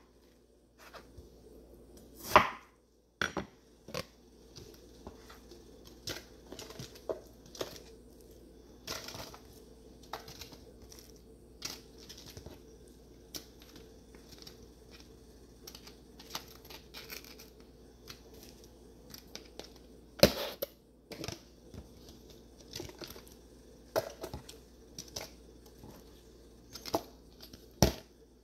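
A chef's knife cutting watermelon on a wooden cutting board, with a few sharp knocks of the blade on the board scattered through. The light crinkle and knock of a clear plastic deli container as watermelon chunks are packed into it.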